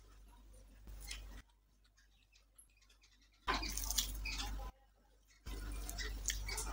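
Close-up eating sounds: wet chewing and small smacking clicks of a mouth, with fingers mixing rice and curry. They come in stretches that cut in and drop away abruptly, with near-quiet gaps between.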